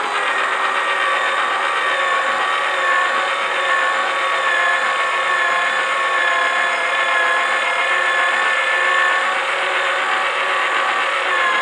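Small electric motor of a My Very Own Pottery Wheel toy running, spinning the wheel head while clay is thrown on it: a steady, even whine.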